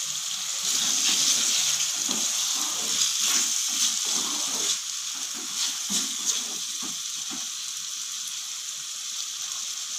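A little water just added to a hot kadai of spiced, oily potatoes and peas, sizzling and hissing steadily. A spatula scrapes and knocks against the pan as the mixture is stirred for the first several seconds. The hiss eases slightly towards the end.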